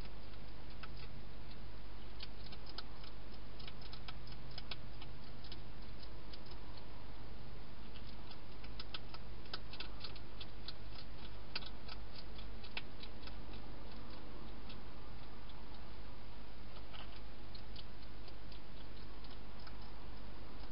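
Hedgehog eating dry food inside a plastic feeding box: quick, irregular crunching clicks of its chewing, several a second, over a steady background hiss and low hum.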